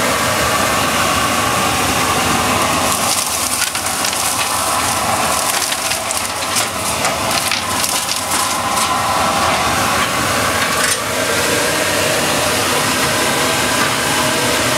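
Grizzly G0862 cyclone dust collector running, a steady loud rush of air through the 4-inch PVC ducting. From about three seconds in until about eleven seconds in, a dense crackling and rattling rides on top of it.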